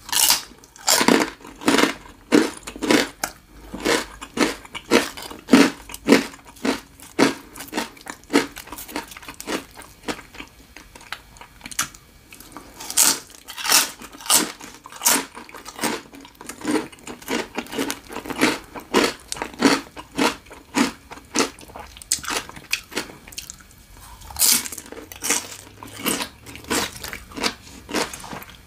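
Close-miked crunching and chewing of crispy fried pork rinds, sharp crackling bites at about two a second that ease off twice into softer chewing.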